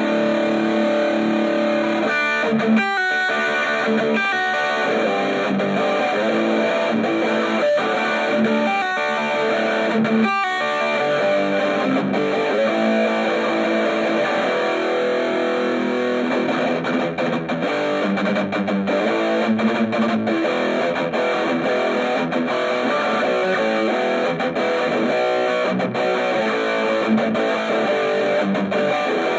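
Electric guitar (a gold Les Paul) played through an Orange Micro Terror hybrid amp, whose preamp runs on a valve, with overdrive on: continuous distorted chords and riffs, with a couple of brief muted stops in the first ten seconds.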